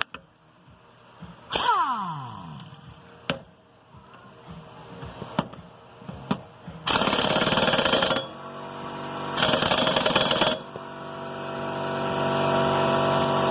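Impact wrench hammering on a mower blade bolt in two bursts of about a second each. Before them, a short whir falls in pitch and a few sharp clicks sound. A steady machine sound builds over the last few seconds.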